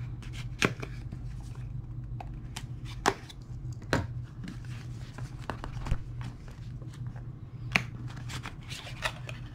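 A pocket knife slitting the seal on a small cardboard earbuds box, then the box being pried and slid open by hand: scattered sharp clicks and scrapes of cardboard, over a steady low hum.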